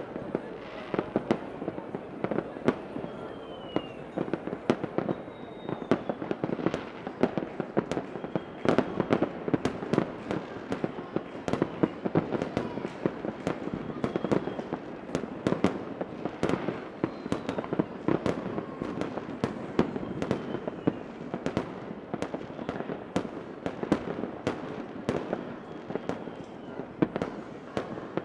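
Fireworks going off continuously: a dense, irregular run of bangs and crackling explosions, with a few faint whistles gliding in pitch now and then.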